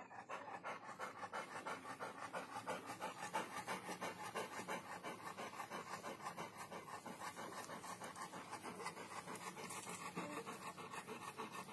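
Labrador panting in a fast, steady, even rhythm.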